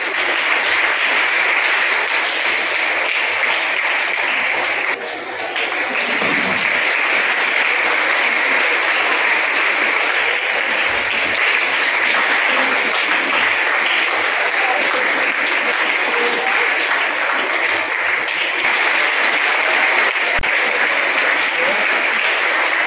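Audience applauding steadily and without a break, dipping briefly about five seconds in.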